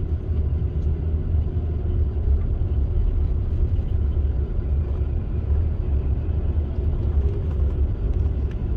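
Steady low rumble of a coach bus cruising on a highway: engine and road noise heard from inside the cabin.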